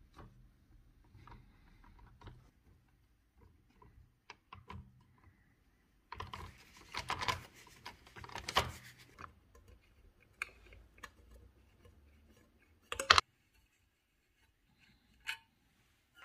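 Hands working on a model steam locomotive: small clicks and taps on its metal body, then a paper towel rustling as it is wiped over the boiler for a few seconds. A short, loud sharp clatter follows about two-thirds of the way through, and one more click comes near the end.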